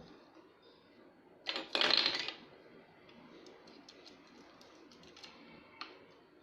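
Velcro tearing apart as a Velcro toy food piece is pulled or cut open: a short rip about a second and a half in, then a longer rip just after. Light clicks of plastic toy pieces being handled follow.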